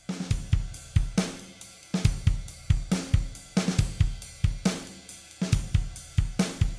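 Background music with a steady drum-kit beat, with cymbals and hi-hat.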